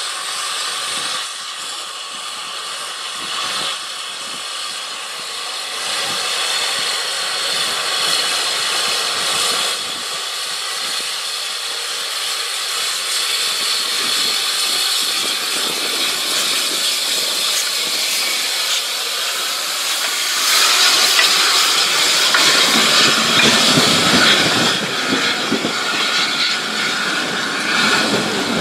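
Narrow-gauge steam locomotive running slowly toward and past with a steady hiss of steam. Its wooden coaches then roll close by, wheels rumbling and clicking on the rails, loudest from about twenty seconds in.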